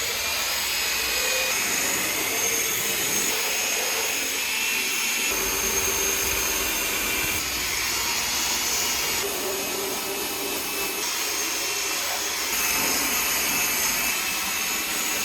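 Cordless power drill running steadily, spinning a scrub brush against plastic body cladding: a continuous motor whine over a scrubbing hiss.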